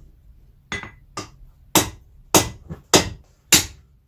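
Hand hammer striking hot steel on an anvil, six blows about every 0.6 s, the first two lighter than the rest, each with a short metallic ring. The blows are forging a notch into a knife blank where the handle will start.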